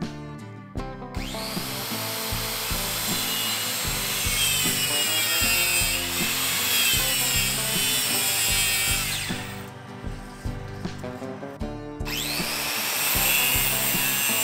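A Makita circular saw spins up with a rising whine about a second in and cuts through plywood, then winds down after about eight seconds; it starts again near the end for a second cut. Background music plays underneath.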